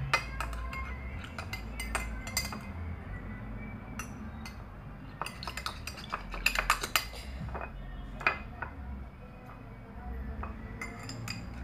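Light clinks and taps of kitchen utensils and containers being handled, coming in scattered clusters with pauses between them, the busiest stretch about five to seven seconds in.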